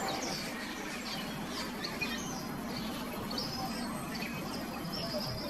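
Birds chirping: many short, high chirps and brief whistles scattered throughout, over a steady background hiss.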